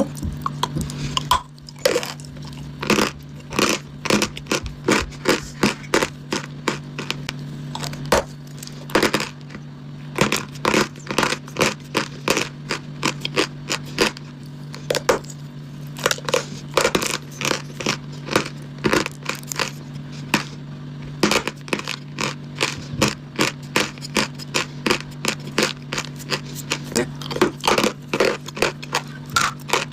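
Sawn chalk and dry clay being bitten and crunched: a quick, irregular run of sharp crunches and cracks, a few a second, over a steady low hum.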